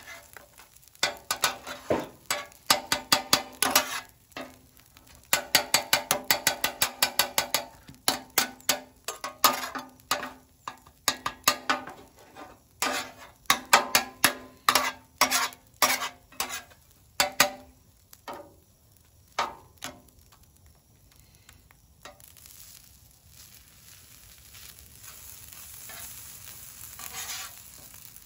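Two metal spatulas chopping and scraping scrambled eggs on a hot steel flat-top griddle, the blades clacking against the plate several times a second with a metallic ring. The clacking stops about 20 seconds in, leaving a soft frying sizzle.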